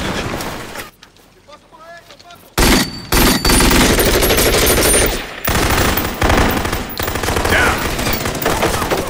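A loud din dies away within the first second. After a lull of about a second and a half, automatic assault-rifle fire breaks out abruptly and goes on in sustained rapid bursts.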